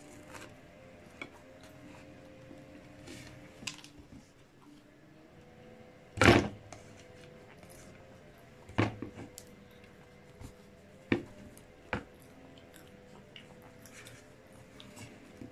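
Close-miked handling of a flour tortilla wrap with fried chicken on a plate: soft rustles and light taps, with one louder knock about six seconds in and a few smaller knocks after it.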